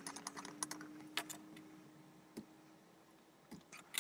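Faint small clicks and light clinks of a plastic screw cap being twisted off a glass lab media bottle and of plastic petri dishes being handled, with a few more clicks near the end.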